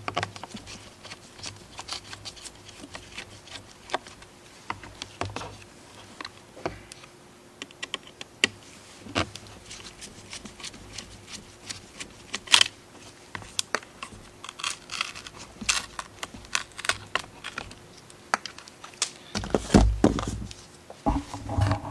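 Irregular small clicks and taps of hand tools and plastic parts being handled on an opened smart display, with one louder knock partway through and a few low thumps near the end.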